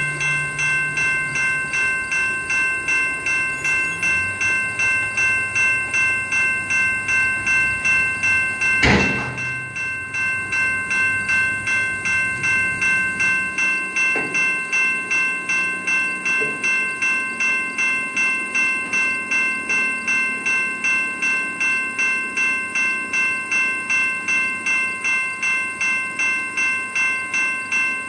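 Level-crossing warning bell ringing with rapid, even strokes, signalling a train approaching the crossing. About nine seconds in there is one sharp, loud knock.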